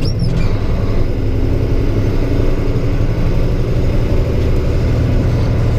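Truck diesel engine running steadily under load, heard from inside the cab, pulling in seventh gear of its 10-speed manual transmission just after the upshift.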